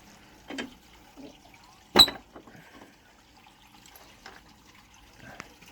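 Pittsburgh Pro flex-head ratcheting combination wrench being worked on a nut: a few faint scattered clicks and one sharp, ringing metallic clink about two seconds in.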